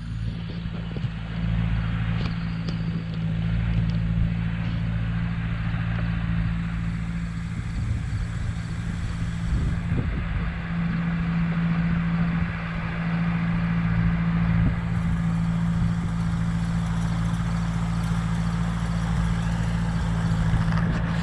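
Engine of a piece of earthmoving equipment running steadily at a constant speed, with scattered clatter and knocks over the top.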